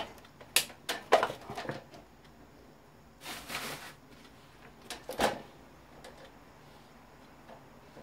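Electric fan parts being handled and knocked while the fan is taken apart: a few sharp clacks in the first two seconds, a short scraping rustle about three seconds in, and a single knock a little after five seconds.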